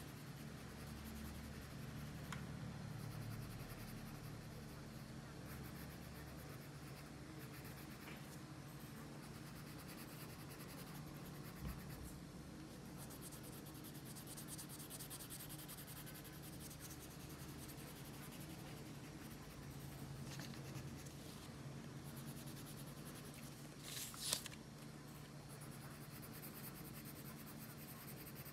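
Faint scratching of a yellow colored pencil shading on paper, over a steady low hum. A sharp tap comes about halfway through and a louder one near the end.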